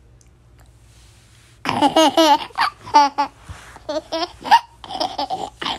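A toddler laughing in short, high-pitched bursts, starting about a second and a half in.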